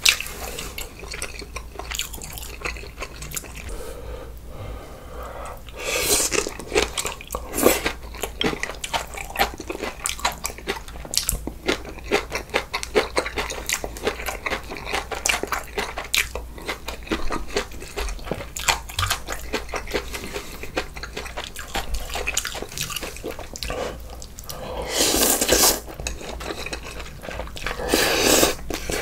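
Close-up eating sounds: chewing and crunching kimchi and bulgogi hot pot, with wet mouth clicks throughout. Louder second-long slurps of glass noodles and broth come about six seconds in and twice near the end.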